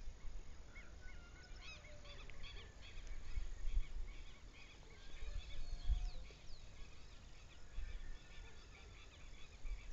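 Several birds chirping and calling at once, many short quick notes, busiest in the first half, over a low rumble of wind on the microphone that comes and goes in gusts.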